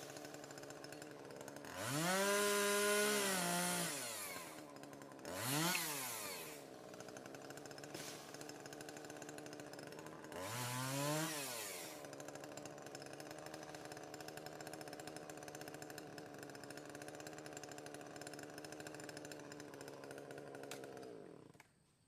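Chainsaw idling, revved up three times (the first rev held for about two seconds), then stopping abruptly near the end.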